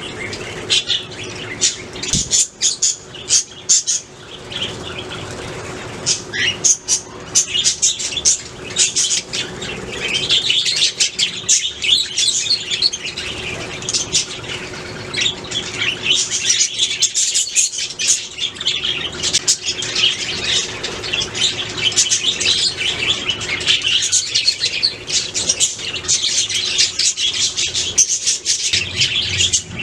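Budgies chirping and warbling continuously, a dense chatter of many rapid, high chirps with scattered squawks and short clicks.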